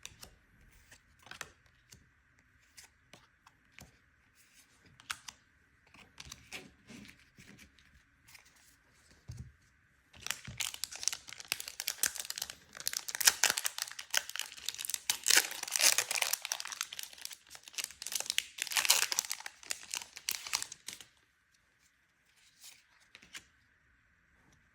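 A Magic: The Gathering booster pack's foil wrapper being torn open and crinkled. This is a dense run of crackling of about ten seconds, starting about ten seconds in, after scattered light taps and clicks of handling.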